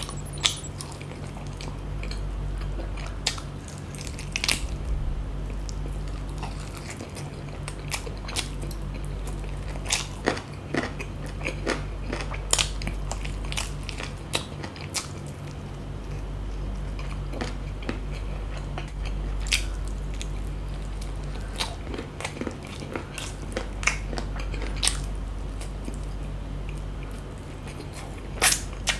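A person chewing and biting chicken biryani and chicken meat off the bone, eaten by hand. Sharp mouth clicks are scattered irregularly throughout, over a steady low hum.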